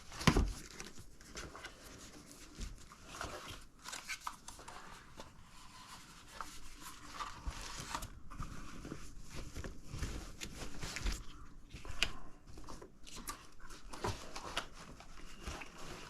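Scattered clicks, taps and rustling of drone gear being handled and fitted into its carrying bag, with a louder knock right at the start.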